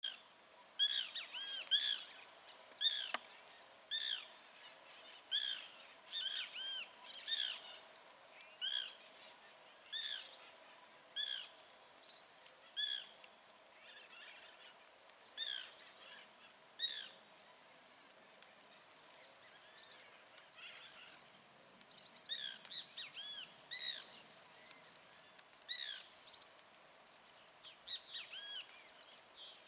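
Blue-black grassquit (tiziu) singing: short, sharp, high notes repeated over and over, about two a second.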